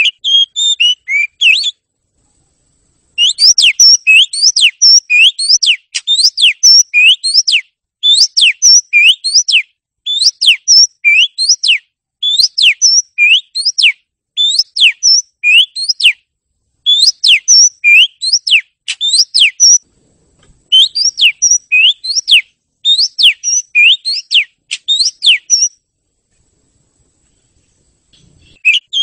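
Oriental magpie-robin (kacer) singing: rapid runs of loud, sharp whistled notes that sweep down and up, in phrases of a second or two with short breaks between them. There is a longer pause just after the start and another near the end.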